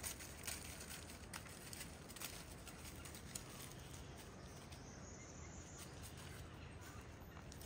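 Quiet outdoor ambience with a few faint clicks and rustles, mostly in the first few seconds.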